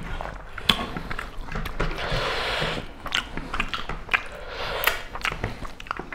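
Close-miked eating: chewing and wet mouth smacks as rice and pork are eaten by hand, with many short sharp clicks and a longer noisy patch about two seconds in.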